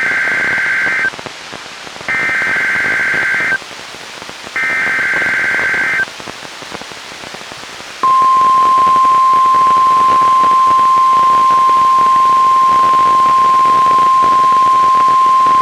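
NOAA Weather Radio Emergency Alert System broadcast for a Required Weekly Test: three bursts of SAME header data tones, each about a second and a half long with a short gap between, then about eight seconds in the steady single-pitched 1050 Hz warning alarm tone begins and holds, over a constant radio hiss.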